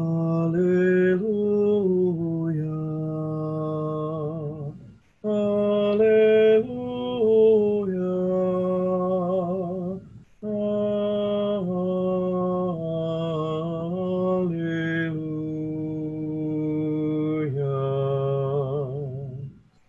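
Slow, meditative Taizé chant sung by voices in sustained phrases with vibrato, about five seconds per phrase, with short breath breaks between them.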